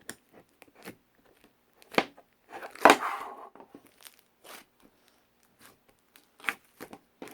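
Close-up handling noises: scattered sharp taps and clicks, with a louder crinkling, rustling sound about three seconds in.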